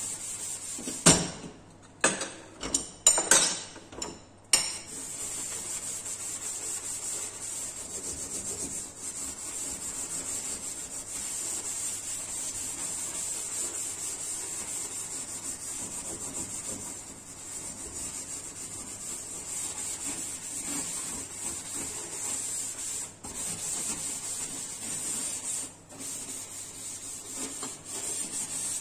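Steel wool pad scrubbing a stainless-steel gas stove top coated in cleaning paste: steady back-and-forth scrubbing at stuck-on grime. A few louder, abrupt strokes come between about one and four seconds in.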